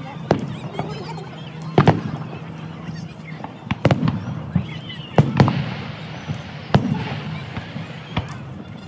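Aerial firework shells bursting in about a dozen sharp bangs, several in quick pairs.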